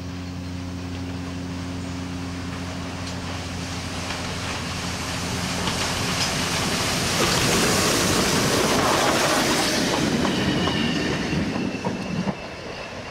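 Steam locomotive and its train approaching and passing close by. Its wheels clatter over the rail joints, loudest in the middle, and the sound falls away sharply near the end. A steady low hum runs beneath it until the train has passed.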